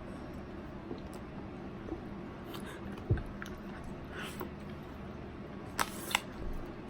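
Quiet room with faint handling noises: a soft low thump about three seconds in and two short sharp clicks near the end.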